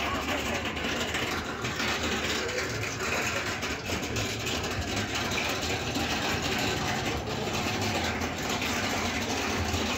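Busy street ambience dominated by a vehicle engine idling steadily, a low hum under the general bustle of the street.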